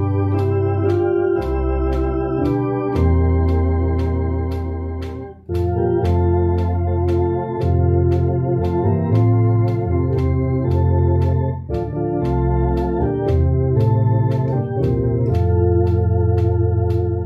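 Two-manual electronic home organ playing a hymn in sustained chords over a bass line, with a steady tick about twice a second keeping the beat. The sound dips briefly between phrases about five seconds in.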